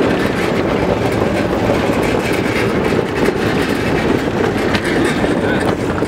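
Arcade cabinet rolling on its small wheels over pavement as it is pushed: a steady, loud rumble with constant rattling from the cabinet and wheels.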